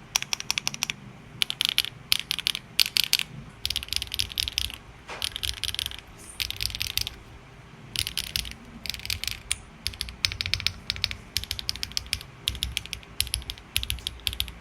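Weikav Nut65 mechanical keyboard (1.6 mm PCB, aluminium plate, PBT double-shot keycaps) typed on in quick bursts of keystrokes with short pauses between them. The keystrokes are sharp and clacky, each cluster a fast run of clicks over low bottom-out thumps.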